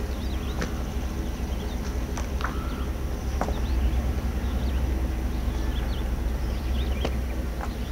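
Volvo VN semi truck's diesel engine idling steadily, with birds chirping now and then.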